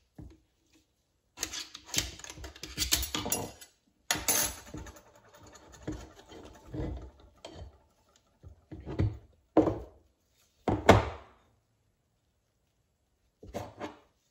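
Metal clinking, scraping and clattering as a screwdriver works at a 48RE transmission's forward clutch drum and its stack of steel and friction clutch plates is pulled out and handled, with a few sharp metallic knocks about two-thirds of the way through.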